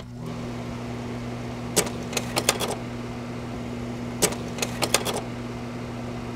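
A steady low hum with two short runs of sharp clicks, about two seconds in and again about four and a half seconds in.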